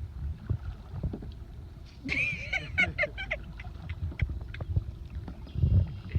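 Kayak on the water: uneven low knocks and splashes from paddle and hull. About two seconds in comes a brief high-pitched, wavering call lasting just over a second.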